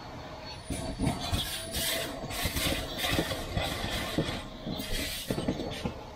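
Irregular scraping and rubbing with scattered knocks and short hissing bursts, from hand work installing window tint film on car glass.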